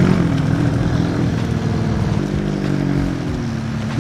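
Engines of a BMW M3 saloon and a McLaren sports car running as they drive slowly past. The note dips slightly at first, and a second, steadier engine note joins about two seconds in.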